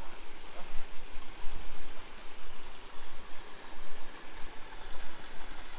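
Shallow rocky creek running over stones: a steady rush of water, with a fluctuating low rumble underneath.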